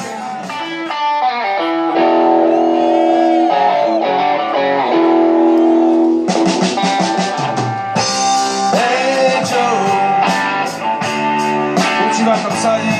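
Live rock band playing an instrumental passage, with an electric guitar lead holding long notes and bending them over the band.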